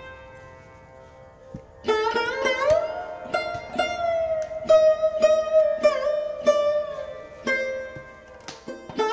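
Background music: a plucked string instrument playing a melody whose notes bend and slide in pitch. It is soft at first and grows fuller about two seconds in.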